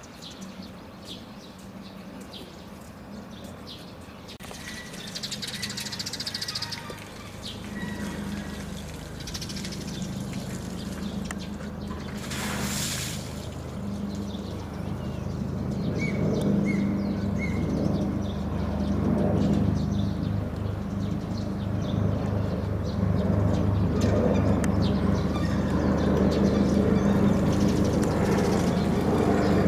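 Low, steady machine hum that grows gradually louder and takes on a slight pulsing beat in its second half. About twelve seconds in there is a brief rushing hiss, and a few short bird chirps come later.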